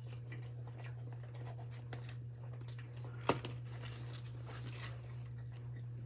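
Quiet chewing of curly fries with faint handling and rustling of food, and a single sharp tap about three seconds in, over a steady low hum.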